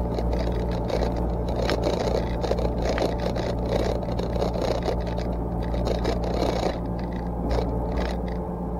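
Yanmar SV40 mini excavator's diesel engine running steadily under working load, with scraping and snapping of brush and branches as the machine clears underbrush; the crackling eases a little near the end.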